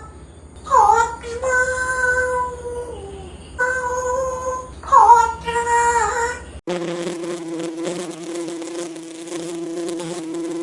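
A few pitched calls, each dipping in pitch at the start and then held, give way suddenly, about six and a half seconds in, to a steady, fluttering buzz like a housefly's wings.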